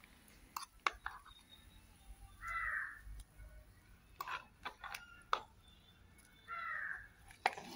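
A spoon clicking and tapping against a steel vessel and a stone pot as ground paste is scraped into the rasam, a handful of sharp knocks spread through. Two short bird calls, about four seconds apart, are the loudest sounds.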